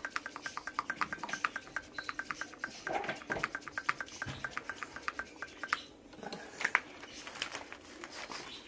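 Hand shock pump being worked to inflate the second leg of a RockShox air suspension fork, giving a fast, even clicking of about six clicks a second. The clicking stops about six seconds in, followed by a few separate sharp clicks and knocks.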